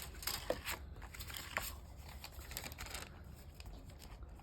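Faint rustling and crinkling of plastic bag packaging, with small clicks of plastic kit parts being handled, busiest in the first second.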